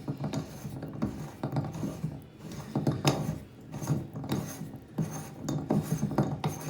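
Old bathtub drain being unscrewed by spinning a drain removal tool in it: an irregular run of scraping and clicking as the drain's threads turn out.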